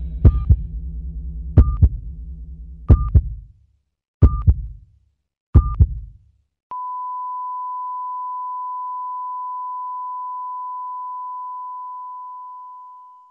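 Soundtrack sound effect: five heartbeat-like thumps about 1.3 seconds apart, each with a short high beep, over a low drone that dies away. About seven seconds in, one long steady beep starts and slowly fades out, like a heart monitor going to flatline.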